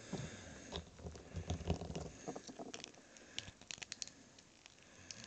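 Handling noise from a Star Wars Black Series Poe Dameron plastic action figure turned and posed in the fingers close to the microphone: soft rustling with scattered small clicks, a quick cluster of sharp ticks about three to four seconds in.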